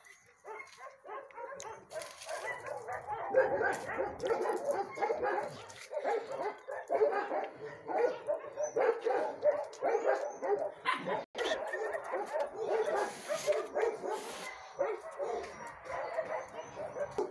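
Many dogs barking at once, a dense overlapping chorus of barks that never lets up.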